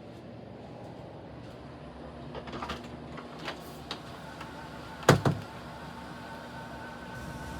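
A few light clicks, then a door shutting with one loud thud a little past halfway, over a steady mechanical hum.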